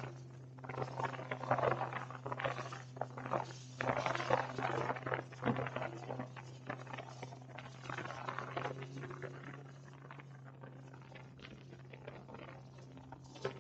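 Jet ski running at speed across open sea: a steady, muffled low engine drone under irregular slapping and spray of water against the hull, the splashing thinning out near the end.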